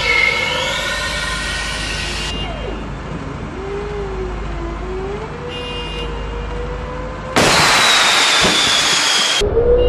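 Mobile missile launcher's engine and hydraulic erector running while the missile canister is raised upright, with a wavering whine over steady mechanical noise. Near the end a much louder hiss cuts in suddenly for about two seconds and stops abruptly.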